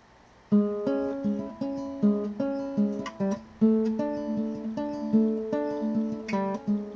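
Background music: a plucked acoustic guitar playing a light melody, starting about half a second in.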